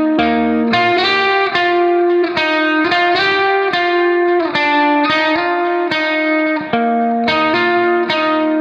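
Background music: a guitar plucking a steady run of notes and chords.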